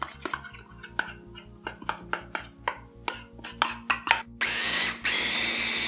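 A metal spoon scraping and tapping as tahini paste goes onto chickpeas in a plastic mini-chopper bowl. About four seconds in, the electric mini chopper starts and runs steadily, blending the chickpeas into hummus.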